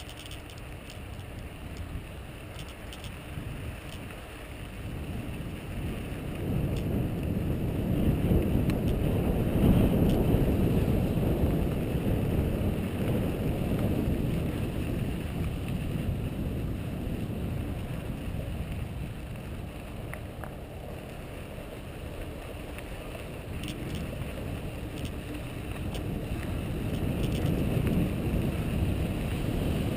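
Wind rushing over the camera microphone with the mountain bike's tyres rolling on a dirt trail. The rush swells a few seconds in, eases, and builds again near the end.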